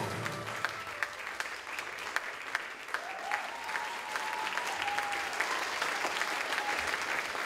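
Audience applauding, the dense clapping starting as the music stops, with a long held cheer rising over it from about three seconds in.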